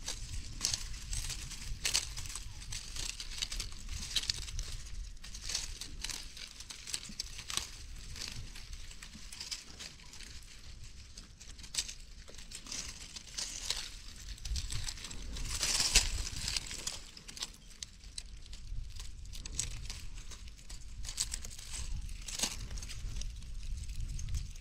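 Dry leaves and twigs rustling and crackling, with scattered sharp snaps, busiest about fifteen seconds in, over a low rumble.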